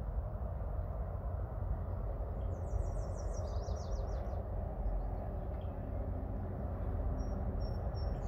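A red-winged blackbird singing: a rapid trill of high notes falling in pitch about two and a half seconds in, then a few short, thin high notes near the end. A steady low background rumble runs underneath.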